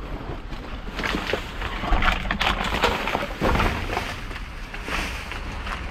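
Irregular rustling and short knocks of bags and packaged goods being handled while rummaging through a dumpster.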